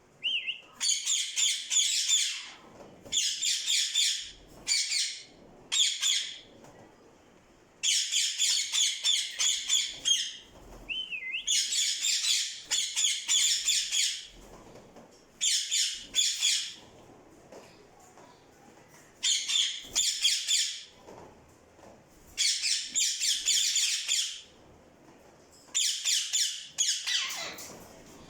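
Parrot squawking in repeated bursts of rapid, high calls, each a second or two long, with short pauses between. A short whistle comes near the start and another about eleven seconds in.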